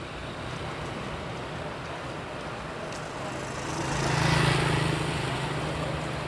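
Large diesel bus engine running with a steady low drone amid road traffic, swelling louder about four seconds in, as when a bus moves off or passes close, then easing off.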